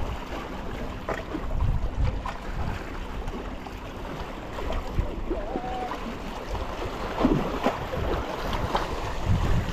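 Sea waves washing and wind on the microphone at the water's edge: a steady, even rushing with a few faint knocks.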